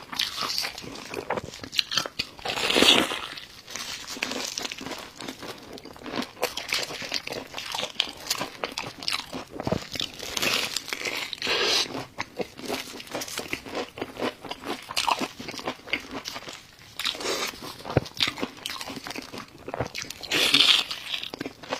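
A person eating crunchy food: crisp bites and chewing, a steady run of crackling crunches with louder bites every several seconds.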